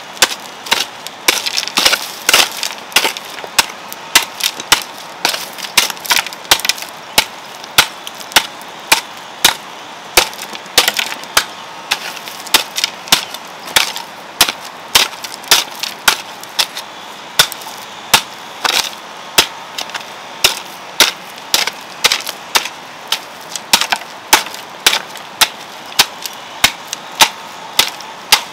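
Garden hoe chopping into stony soil: a steady run of strikes, about two to three a second.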